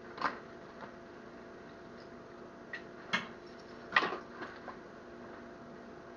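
A person handling things close to the microphone: a few irregular sharp knocks and clicks, the loudest about four seconds in, over a faint steady hum.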